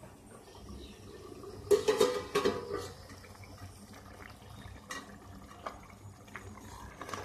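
Ladle working in a steel pot of crab curry: a burst of loud clatter about two seconds in, then a few lighter clicks over liquid sloshing.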